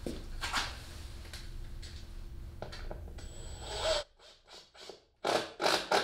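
Rubbing and scraping handling noises over a low shop hum that drops out about four seconds in. Near the end come a few short scraping strokes as screws are tightened by hand from underneath into the glued plywood transom.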